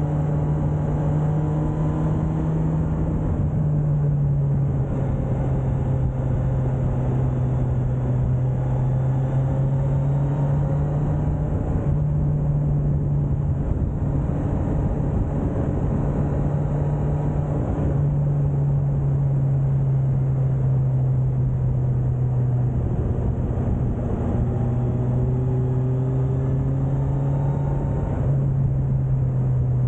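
Suzuki GSX1250FA's inline-four engine running under way, its pitch dropping and climbing again several times with the throttle and gears, over steady wind and road noise.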